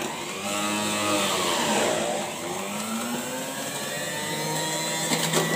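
Panasonic MJ-J176P juicer's motor running with a whine. Its pitch dips about a second in and climbs back over the next two seconds as food is pressed down the chute with the pusher, then holds steady. A few clicks come near the end.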